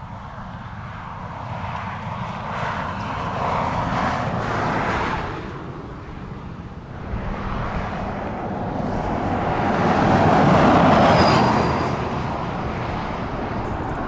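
Vehicles passing by on a wet highway: tyre hiss swells up and fades away, once about four seconds in and again, louder, about eleven seconds in.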